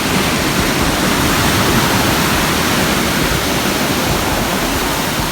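Sea surf: a steady, loud wash of waves breaking in the shallows, the waves running strong.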